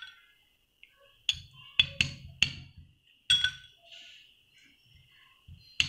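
A spoon clinking and knocking against a small glass dish, a handful of sharp, irregular clinks with a brief ringing tone, as chicken stock is stirred into ginger-garlic paste.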